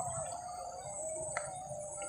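Background music: a held, slowly wavering tone over a steady high shimmer, with a single click about one and a half seconds in.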